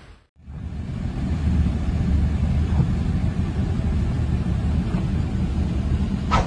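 Steady low rumble of traffic on a flooded street. It starts just after a brief drop-out.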